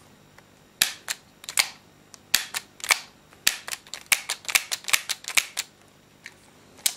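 Tokyo Marui S&W M66 airsoft gas revolver's action being worked unloaded, making a quick run of sharp mechanical clicks, many in close pairs, for about five seconds. Two more single clicks come near the end.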